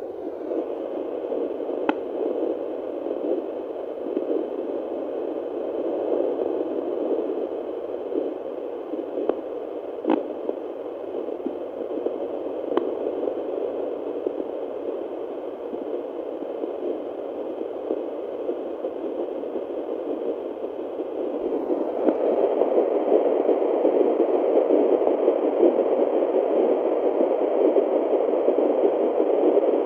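Hissing, whooshing static from a handheld fetal Doppler's speaker as its probe searches the lower belly for an early fetal heartbeat, with a few short clicks from the probe. The noise gets louder about three-quarters of the way through.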